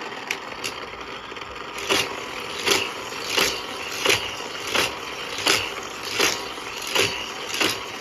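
Motorized Hot Wheels track booster whirring steadily while a die-cast toy car runs laps through it, its wheels smacking the car about nine times at an even pace of roughly one hit every 0.7 s.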